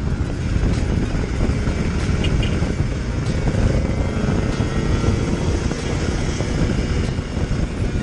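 Motorcycle running under way at road speed, with a steady rumble of wind over the camera microphone.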